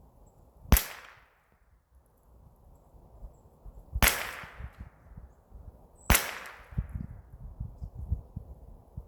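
Three single gunshots from a Rossi semi-automatic .22 LR rifle, heard from about 50 yards away, each a sharp crack with a trailing echo. The first comes under a second in and is the loudest, the next two follow about three seconds and then two seconds apart. Low rumbling thumps sit underneath.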